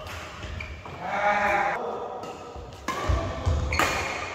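Badminton doubles rally in a large hall: court shoes squeaking on the synthetic court mat, footfalls, and a sharp racket strike on the shuttlecock near the end.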